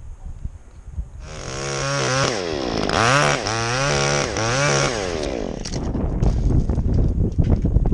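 Two-stroke chainsaw revving up and down several times, its pitch rising and falling over about four seconds, starting about a second in; then wind rumble and rustling on the microphone.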